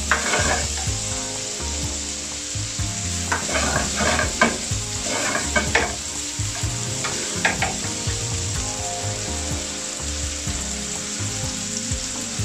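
Chopped onion and garlic sizzling in hot oil in a nonstick frying pan, with a few short scrapes of a spatula as they are stirred.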